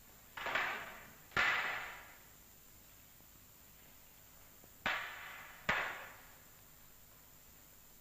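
Wooden fighting sticks clacking together in double-stick fencing: two sharp echoing strikes about a second apart, then two more about four seconds later.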